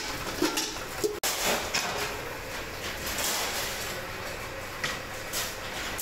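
Stainless steel utensil workshop noise: scattered clanks and clatter of steel over a steady noisy background, with a brief dropout about a second in.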